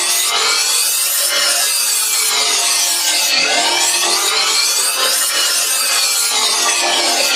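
Harsh, loud, electronically processed noise with a sweeping phaser-like effect: a comb of tones glides slowly up and down, repeating about every four seconds.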